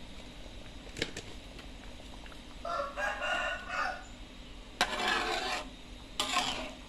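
A metal ladle stirring and scraping through thick gravy in an aluminium wok: a light knock about a second in, then two louder scraping strokes near the end. In between, a short pitched call sounds in the background.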